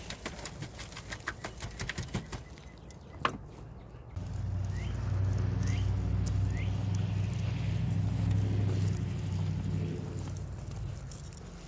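Dry pea vines and plant debris crackle and rustle as they are handled. About four seconds in, a low engine hum swells, holds steady and fades out near the end. A few short rising chirps sound over it.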